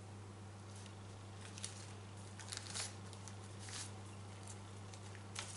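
Faint rustling and a few soft taps of hands handling puff pastry on crinkly baking paper, over a steady low hum.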